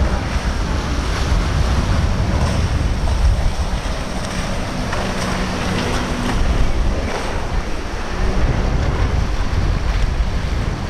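Wind buffeting the microphone with a heavy low rumble over the steady wash of surf and waves at an inlet, with a boat's engine faintly underneath.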